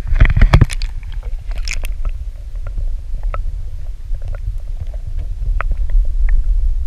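Water splashing in the first two seconds as a largemouth bass is lowered back into the lake by hand, then a heavy, muffled underwater rumble with scattered small clicks and bubbling, heard through a camera held under the surface.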